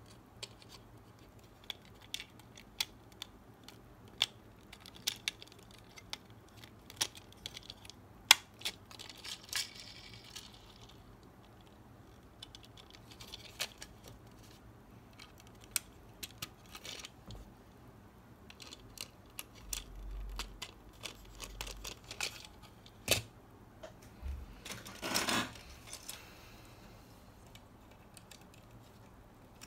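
Hard plastic parts of a 1:24 Maisto Ferrari Enzo die-cast model being handled and pressed together: scattered sharp clicks and taps, a few dull knocks on the table past the middle, and a longer scratching rub a few seconds before the end.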